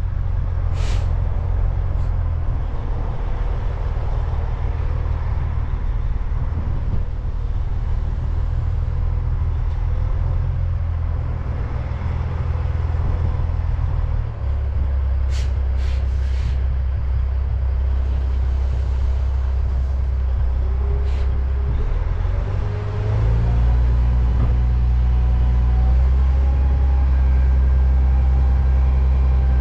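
Dirt-delivery truck's engine running steadily, its revs stepping up about fourteen seconds in and again a little past twenty-two seconds, with a few short, sharp hisses.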